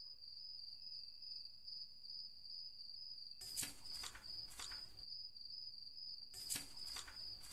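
Crickets chirping in one steady, high-pitched trill. Over it come a few soft rustles of paper pages being turned, in two short clusters, about halfway through and again near the end.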